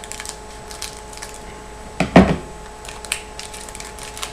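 Hockey card packs being handled on a table, with faint clicks and rustles and one loud, dull thump about two seconds in.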